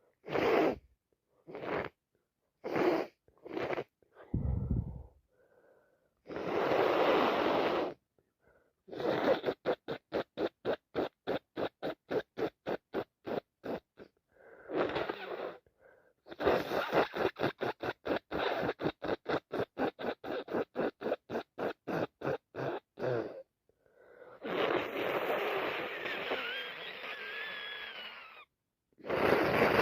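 A person with a heavy, congested head cold sniffling and blowing their nose: a few short sniffs, then long wet nose blows, one with a thin whistle through it. Between the blows come two long runs of rapid, even sniffs, about four a second.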